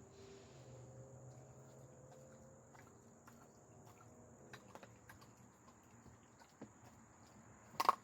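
A dog chewing and crunching raw chicken: scattered soft clicks and crunches, with one louder sharp knock near the end.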